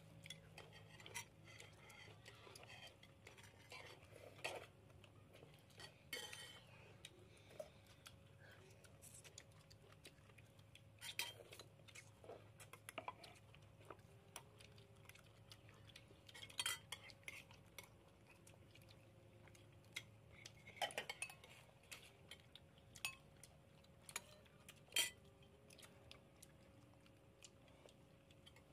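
Metal spoons clinking and scraping against ceramic plates and bowls, in sparse irregular taps, over a faint steady hum.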